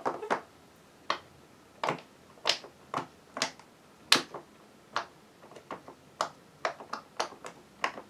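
Silicone pop-it fidget toy having its bubbles pushed through one at a time, each giving a single sharp pop. The pops come about two a second, a little faster in the second half.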